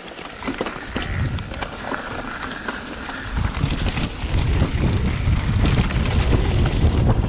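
Wind buffeting the microphone and tyre rumble over a leaf-strewn dirt trail as an Orange Stage 6 mountain bike picks up speed downhill, with a few sharp clicks in the first second or so. The rush grows louder and heavier about three and a half seconds in as the bike speeds up.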